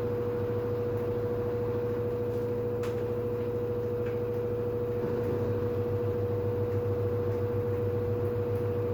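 LG FH4A8TDN2 front-loading washing machine running its spin cycle: a steady high motor whine over a low drum hum. About five seconds in, the hum changes and grows slightly louder.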